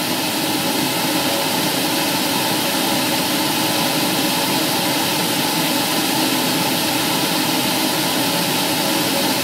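Light aircraft engine drone heard from inside the cabin in flight: a steady, unchanging hum with a few constant tones over wide noise.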